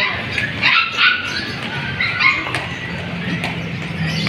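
Puppy yipping and whimpering: a run of short, high-pitched yips in the first second and another couple about two seconds in.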